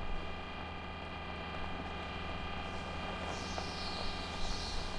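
Steady machine hum with several held whining tones, as of a Mars rover's motors running; a hiss rises over it about three seconds in.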